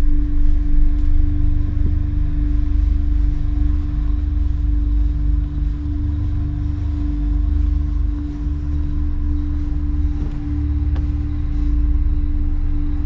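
A sustained low drone holding one steady pitch, an ambient horror-film music bed, over an uneven low rumble like wind buffeting the microphone.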